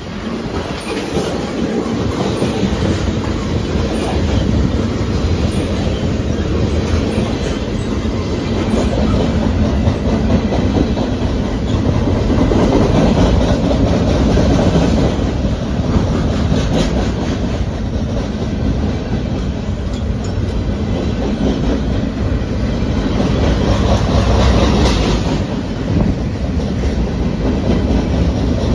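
Freight cars of a CSX train rolling past close by: a steady, loud rumble and clatter of steel wheels on the rails, tank cars followed by tall open-top cars, with no locomotive engine standing out.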